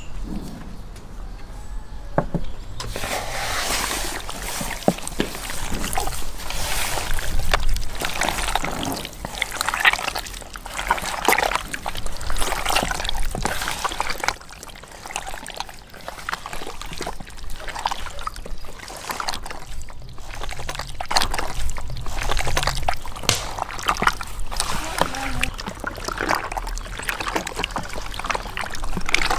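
Bare hands kneading raw chicken pieces in a thick red marinade in a plastic tub: wet squelching and sloshing, with a quieter stretch about halfway.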